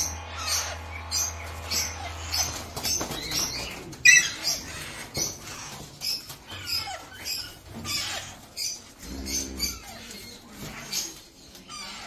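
Flock of Alexandrine parakeets, adults and young, giving short high calls over and over, about two a second, with wings flapping. One louder sharp call comes about four seconds in.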